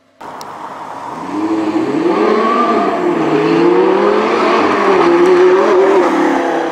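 Lamborghini Gallardo LP550-2's V10 breathing through an Fi Exhaust titanium valvetronic muffler, accelerating past. The note starts suddenly a moment in, then climbs and dips in pitch as it pulls through the revs, growing louder toward the end.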